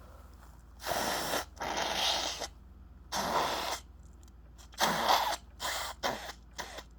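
A person's breathing and nose noises, such as sniffs and breaths through the nose: about seven breathy bursts, two longer ones early, then one alone, then four short ones in quick succession near the end.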